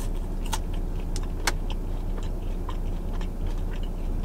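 Steady low hum inside a car cabin, with scattered small clicks and ticks from chewing a mouthful of fries, the sharpest about one and a half seconds in.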